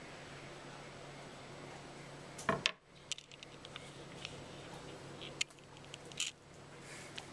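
A cat moving among objects on a cluttered table and brushing against the camera: a sharp pair of knocks about two and a half seconds in, then scattered light clicks and taps, over a faint steady hum.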